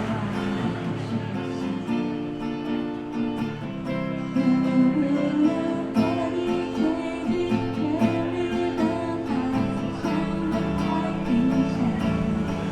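Music led by an acoustic guitar, plucked and strummed.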